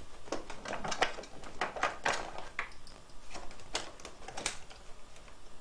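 Irregular clicks and clatter of small hard items being handled: rummaging through a storage box of screwdriver bits for a security-screw bit.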